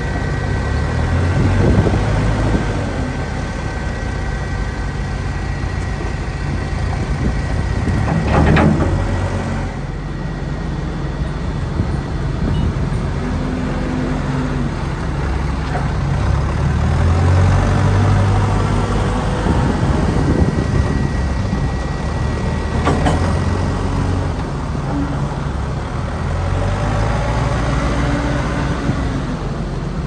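Diesel engine of a Terex TX wheeled loader running and revving up and down as the loader works a bucket of manure. Two sharp knocks stand out, one about a third of the way in and one past the three-quarter mark.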